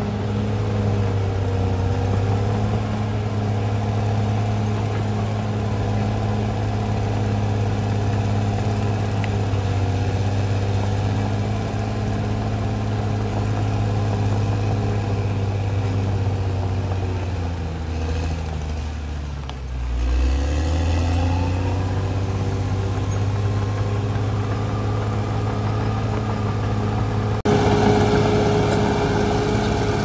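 Diesel engine of a Caterpillar D6R crawler bulldozer running steadily while it works. About two-thirds of the way through, the engine's pitch dips and then rises again. Near the end the sound changes suddenly to another bulldozer's engine running at a steady pitch.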